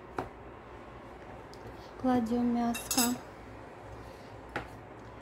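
A metal spoon clinking against a plate as pork mince is scooped onto a blin, a few separate sharp clicks. About two seconds in, a woman briefly hums or draws out a word for about a second.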